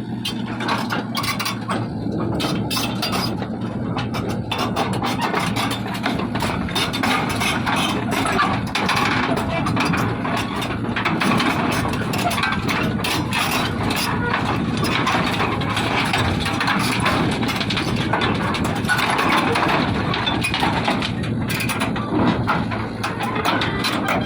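Kubota U50 mini excavator's diesel engine running under load while its hydraulic breaker hammers, a dense run of rapid sharp blows over a steady engine drone.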